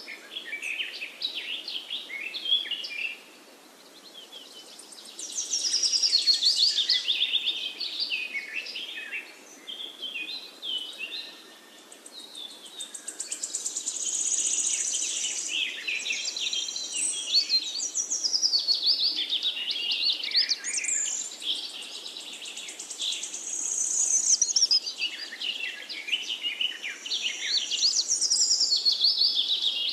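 Birds chirping and singing in a continuous run of quick high notes, louder and quieter by turns.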